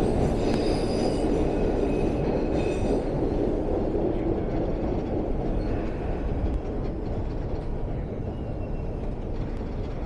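MBTA Orange Line subway car running through the tunnel, heard from inside the car: a steady rumble of wheels on rail, with high wheel squeal in the first three seconds. The rumble slowly eases toward the end.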